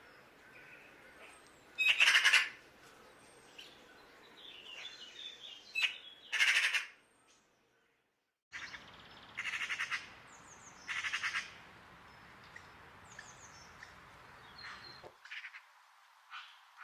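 A young Eurasian magpie close by giving loud, harsh, rattling calls, about five short ones a few seconds apart, with faint chirps in between.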